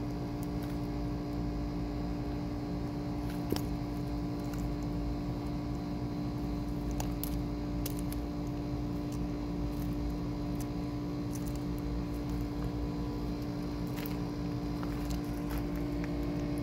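Steady machine hum with a strong low tone, as of a running motor, with a few sharp clicks as a sulcata tortoise bites into zucchini sticks.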